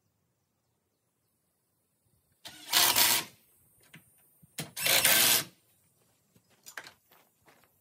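Cordless drill run under load in two bursts of about a second each, roughly two seconds apart, driving into the wooden board; a few light knocks follow near the end.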